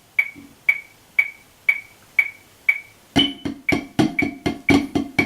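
Metronome clicking steadily at about two clicks a second, with a higher accented click about three seconds in. At that accent, drumsticks come in on a drum playing the Swiss Army triplet rudiment (flam, then two single strokes, repeating) in 16th notes over the click.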